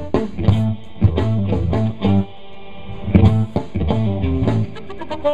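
Live funk band playing through a PA: electric guitar and bass guitar over a drum kit, with a steady beat that thins out briefly about two seconds in.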